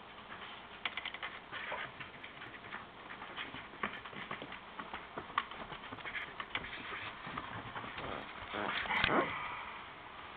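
Light, scattered crunching and patter of footsteps in snow, with a louder rustle about nine seconds in.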